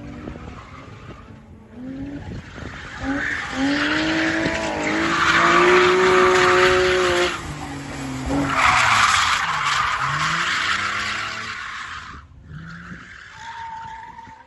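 BMW 330 drift car's engine revving high with its rear tyres screeching and skidding through a drift. It is loudest as the car passes close, with a short dip in revs about halfway, then fades as it drives away near the end.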